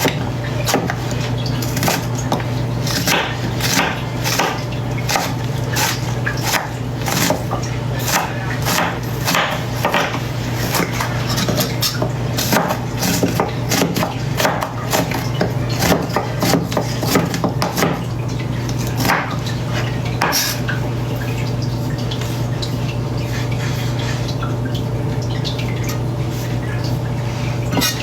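A kitchen knife chopping vegetables on a cutting board: irregular quick knocks, thinning out after about twenty seconds. A steady low hum runs underneath.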